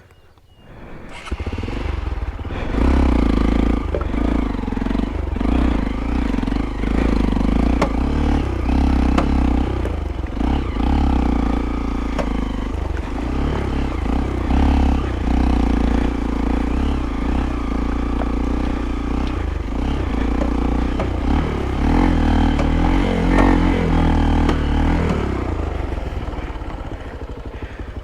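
Motorcycle engine, the Hero Impulse's 150 cc single-cylinder, coming in about a second in and then running hard with the revs rising and falling over and over as the bike works through slush. The revs drop back near the end.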